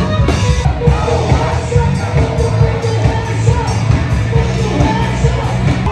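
Live band playing loud amplified pop-rock with a singer, the bass strong and steady.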